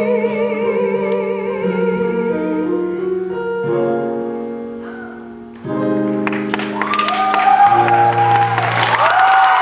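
A singer holds a final note with wide vibrato over sustained accompaniment chords, which fade away; about halfway through a final chord sounds. The audience then bursts into applause and cheering with high whoops.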